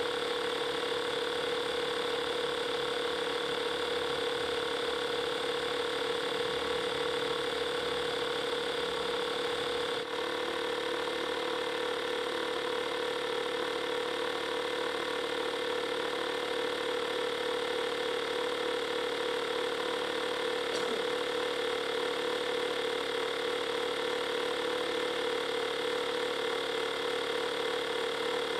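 Compact 12-volt portable tire inflator running steadily with a constant hum while it pumps up a fully flat car tire, still short of its preset pressure. There is a momentary dip in the sound about ten seconds in.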